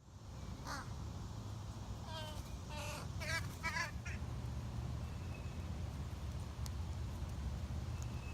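A bird calling outdoors: one short call about a second in, then a quick run of wavering calls over the next two seconds, over a steady low rumble.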